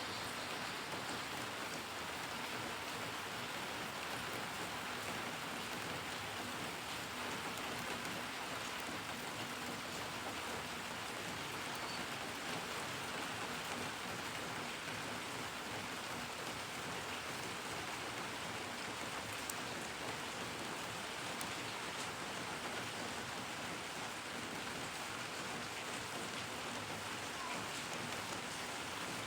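Steady rain falling and pattering on surfaces, an even hiss with no change in intensity.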